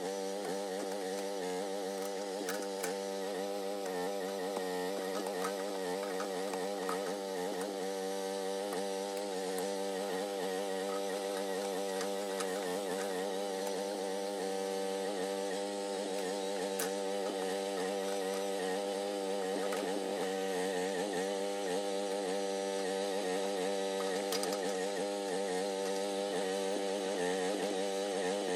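Small engine of a Groundhog mini excavator running steadily through a long stretch of work, its pitch wavering up and down as the hydraulics take and release load.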